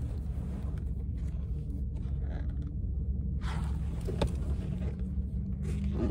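Steady low rumble inside a car, with a few brief rustles of paper as a picture book's pages are turned.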